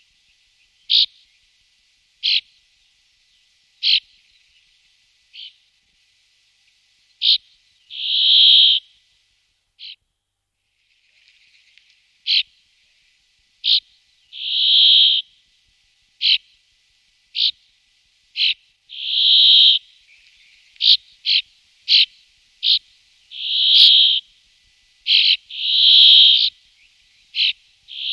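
Brambling calling and singing: short sharp call notes every second or two, broken by drawn-out buzzy, wheezing song notes about a second long. The buzzes come every few seconds and more often toward the end.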